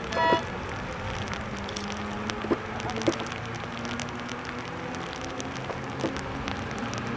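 Rain pattering and dripping close to the microphone in sharp little clicks, over the steady distant drone of classic Mini race car engines circulating the track. A short high tone sounds just after the start.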